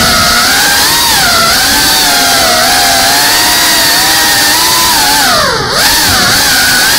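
FPV drone's motors and propellers whining loudly, the pitch wavering up and down with the throttle. About five and a half seconds in the pitch drops sharply as the throttle is cut, then climbs straight back.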